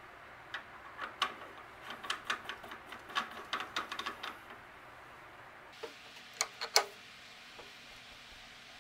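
Light metallic clicks and taps as a spacer and hex nut are fitted by hand onto the threaded end of a lathe arbor, then, about six seconds in, a few sharp ringing metal clinks as an adjustable wrench is set on the nut.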